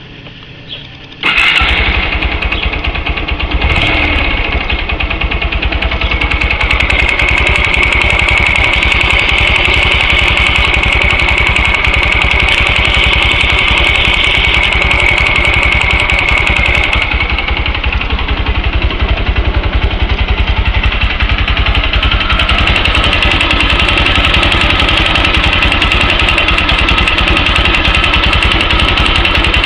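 Yamaha YBR-125's single-cylinder four-stroke engine starting about a second in, then running steadily at idle, with the engine knock that the owner is recording as a fault.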